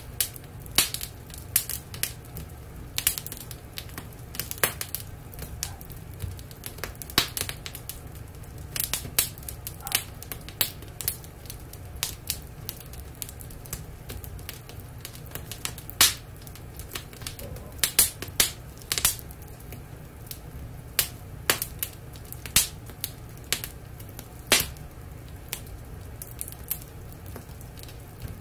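Wood fire crackling in a fireplace: irregular sharp snaps and pops, one or two a second, over a steady low hum.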